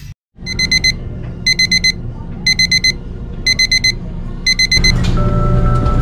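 Front-load washer's electronic beeper sounding an error alarm: five bursts of four quick high beeps, about one burst a second, with the display showing fault code F28. Background music comes in near the end.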